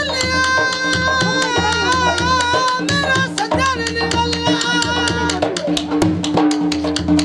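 Punjabi folk music: a dhol drum beats a steady, even rhythm while a wavering melody line carries over it, above a steady low drone.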